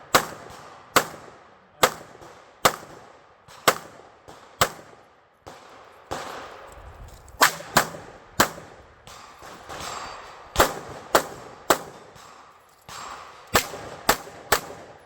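Gunshots from a single shooter firing a stage: sharp single shots about one a second, then quicker pairs and runs of three later on, each with a short echo.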